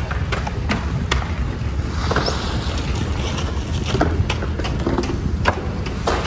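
Fish market floor ambience: a steady low rumble with many irregular clacks and knocks from work among the boxes of catch.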